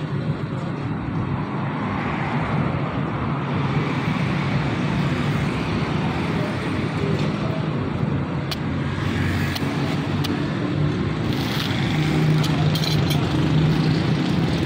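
Steady road-traffic noise with a low engine hum. Around the middle there are a few sharp clicks as a metal blade works at a coconut husk.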